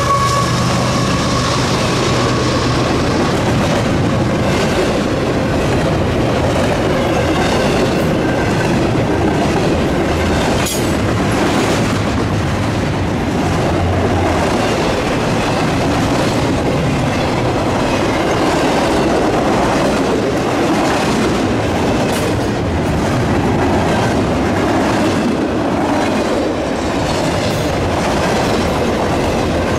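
Freight train of double-stacked container well cars rolling past at speed: a continuous rumble with wheels clicking over rail joints. In the first second or two the last note of the diesel locomotives' horn fades out, and the locomotives' engine hum dies away soon after.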